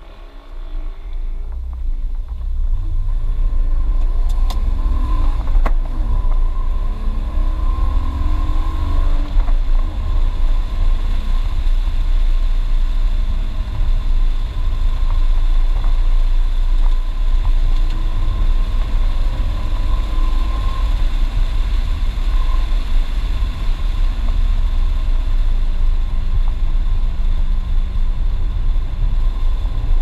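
BMW E36 328is's straight-six engine, heard from inside the cabin, pulling away and revving up through the gears with rising pitch over the first several seconds. It then runs steadily at speed under a dense low rumble.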